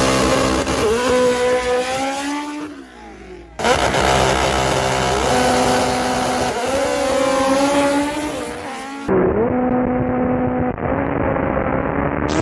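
Honda K-series four-cylinder engines revving repeatedly, pitch climbing and dropping again and again. The sound jumps between recordings twice, and over the last few seconds it is duller and muffled.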